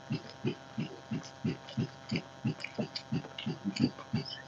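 Close-up chewing of a mouthful of rice and curry, an even rhythm of soft chews about three a second, with small wet mouth clicks between them.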